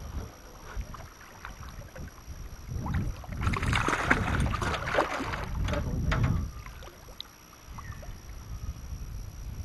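A hooked fish thrashing and splashing at the surface beside a boat as it is grabbed by hand, loudest for about three seconds starting roughly three seconds in.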